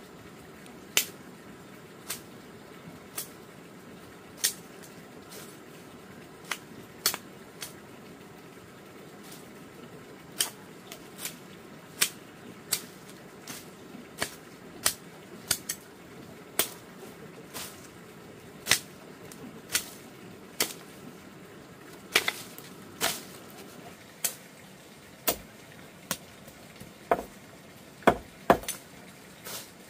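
A long run of sharp knocks or strikes at an uneven pace, roughly one a second, over a faint steady hiss.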